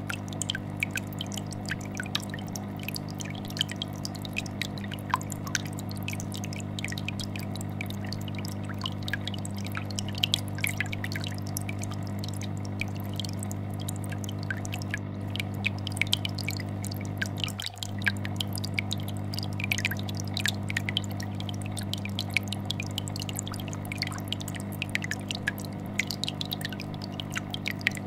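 Aquarium air bubbler bubbling, a continuous patter of small pops, over the steady low hum of a fish tank filter vibrating.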